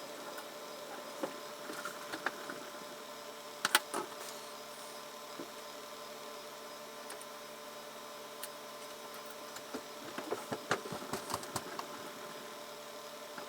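Small sharp clicks and taps of tiny metal wristwatch parts and small tools being handled during reassembly: a few scattered clicks, a pair about four seconds in, and a quick run of clicks near the end, over a steady background hum.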